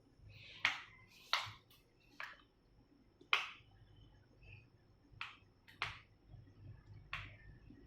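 A spoon knocking and scraping against a bowl as fruit pieces are stirred into thick custard: separate, irregular clinks about once a second.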